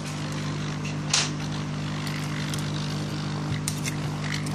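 Hot air rework gun blowing steadily, a hum with airflow hiss, heating the solder around a SIM card slot on a circuit board. A sharp click about a second in, with a few fainter clicks near the end.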